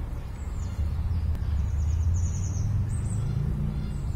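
Small birds chirping: a few short high notes, then a quick trill about two seconds in. Underneath runs a steady low rumble.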